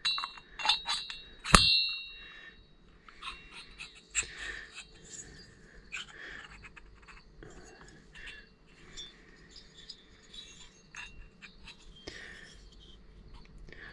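Chainsaw piston and aluminium cylinder knocking together as they are handled: a few sharp metallic clinks with a short ring in the first two seconds, then scattered soft taps and rubbing.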